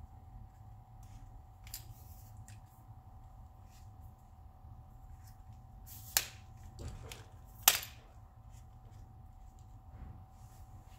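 Handling of a MeFOTO S-series travel tripod's two-piece center column as it is lowered. A few faint ticks, then two sharp clicks about a second and a half apart, around the middle, as the column parts seat and lock.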